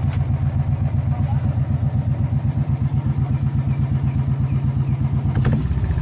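Royal Enfield Bullet motorcycle's single-cylinder engine running with an even pulsing beat. About five and a half seconds in there is a click and the engine's tone shifts.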